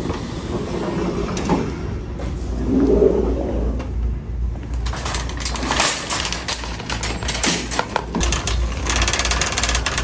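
Shopping cart rattling as it is pushed along, with a dense clatter of its basket and wheels starting about halfway through.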